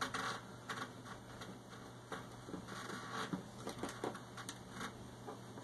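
Faint scattered ticks and light scraping from handling a small plastic sensor module while it is pressed onto the ceiling with adhesive tape, over a low steady hum.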